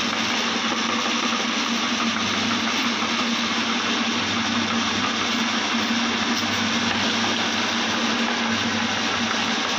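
Electric meat grinder running steadily under load with a constant hum, its auger pushing soft mashed fruit out through the grinding plate.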